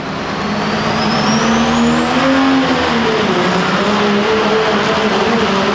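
Second-generation Dodge Ram's Cummins diesel engine at full throttle on a truck pull. A high turbo whistle climbs steeply over the first two seconds and then holds over a steady engine drone, whose pitch dips briefly about three seconds in.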